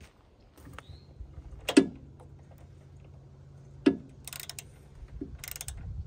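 Socket ratchet wrench clicking in two short bursts on the oil drain plug of a pressure washer's engine. Two sharp knocks come before it, over a low steady hum.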